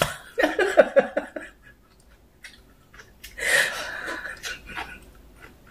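Soft laughter from a woman in two short bursts, about half a second in and again a little past three seconds.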